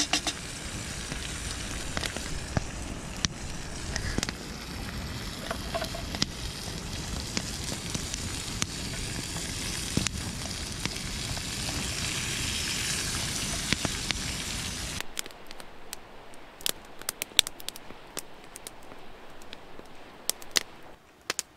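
Wood campfire crackling, with a steady hiss over it that stops abruptly about fifteen seconds in, leaving only scattered sharp pops of the burning wood.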